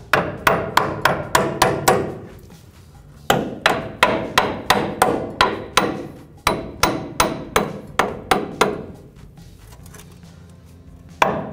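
Metal hammer tapping on a Chevy Silverado 1500's new upper control arm to work it into its frame mounts. The blows are quick metal-on-metal strikes, about four a second, each with a short ring. They come in runs, with a pause after the first couple of seconds and another near the end.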